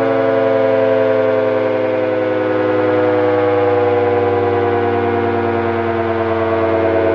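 Castle Castings electromechanical air-raid siren running on three-phase power, sounding a loud chord of several tones that slowly sinks in pitch.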